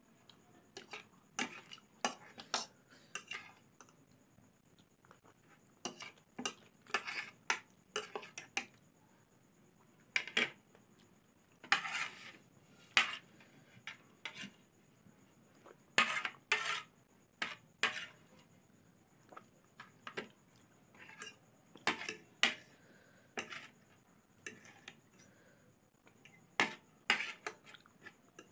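Metal fork and spoon clinking and scraping against a plate, in irregular clusters of sharp clicks with short pauses between, as the last noodles are gathered from the nearly empty plate.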